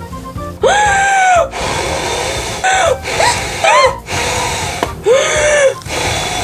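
A voice performing the wolf's huffing and puffing: strained, high-pitched blowing breaths, one long blow, then a few short quick ones, then another long blow.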